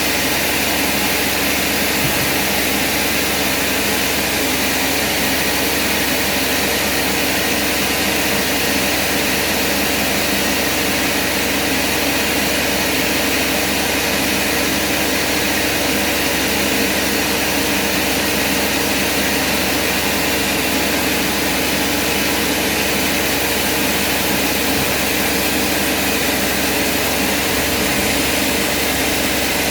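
Heavy machinery running steadily: a constant, unchanging mechanical drone with a hiss over it.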